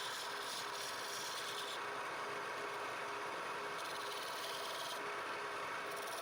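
Wood being worked on a lathe: steady rubbing and scraping of a tool against the spinning wood, with a faint steady hum underneath.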